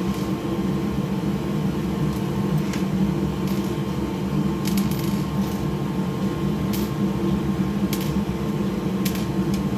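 Steady hum of workbench machinery, such as a fan, with a few faint, light clicks spaced a second or more apart as small screws are driven into a PS5's casing.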